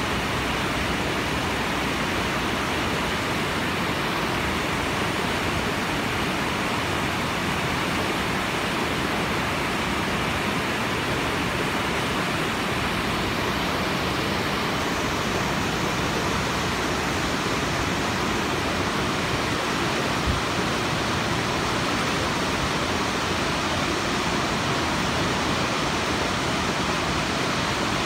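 River rapids: fast white water rushing over and around boulders in a steady, even rush.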